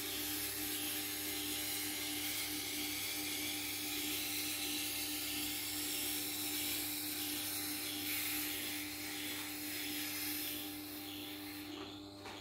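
Tormek sharpening machine running with a steady motor hum while a knife blade is drawn across the spinning CW-220 composite honing wheel to remove the burr, a continuous hissing rub. The rubbing stops near the end as the blade is lifted off the wheel, leaving the motor hum.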